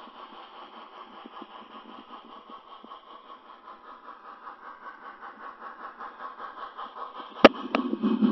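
Onboard digital sound of an HO scale MTH Chesapeake & Ohio 2-6-6-6 Allegheny steam locomotive model: steady, rhythmic exhaust chuffing as it works a heavy coal train up a grade, heard through the model's small speaker with no deep bass. Near the end come two sharp knocks, after which the chuffing is louder and closer.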